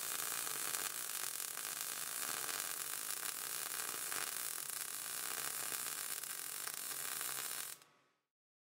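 MIG welding arc from an ESAB Fabricator welder, burning steadily as a bead is laid on steel plate: an even, fairly quiet hiss that cuts off sharply near the end.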